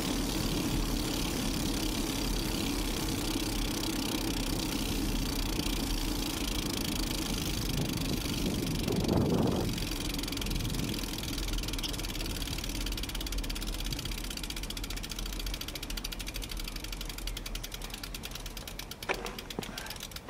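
Mountain bike coasting on asphalt: Continental Race King tyres humming on the road, with wind rushing over the bike-mounted microphone and a brief louder rush about halfway through. In the second half the noise slowly fades as the bike loses speed, and the rear freehub's fast ticking grows slower.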